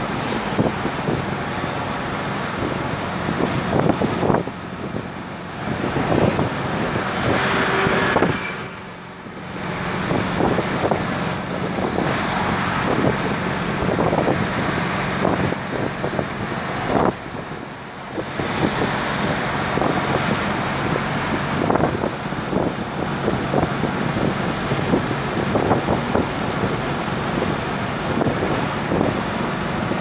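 Steady road noise of a vehicle driving at speed on an expressway, heard from inside the cabin, dipping briefly in level a few times.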